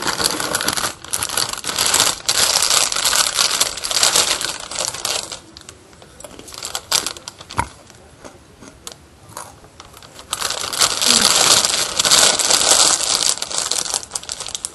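Loud rustling and scraping of fabric or hands rubbing right against the microphone, in two long stretches with a quieter gap of a few seconds in the middle, dotted with small clicks.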